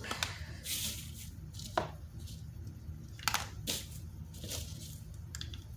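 Handling noises: about six separate taps and rustles, spread through a low steady background hum.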